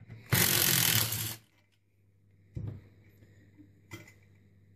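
Makita cordless driver running for about a second as it backs out a stuck Torx screw from an oxygen-concentrator compressor's cylinder head, followed by two light metal knocks as the head is lifted off.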